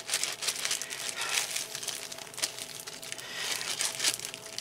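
Crinkly plastic packaging being handled, making an irregular crackling.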